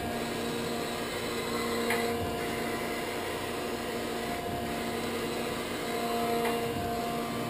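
Gallmeyer & Livingston Grand Rapids 560 surface grinder running: a steady motor and pump hum with a faint tone in it, and a light knock about two seconds in.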